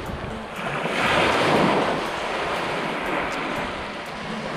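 Small lake waves washing up onto a sandy beach. One wash swells about a second in and then slowly drains back.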